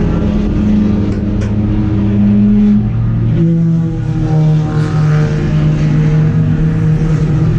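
Race car engine running hard at a steady pitch, which steps down about three seconds in and holds at the lower note.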